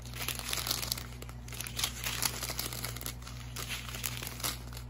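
Thin clear plastic bags of diamond painting drills crinkling unevenly as they are handled and turned over.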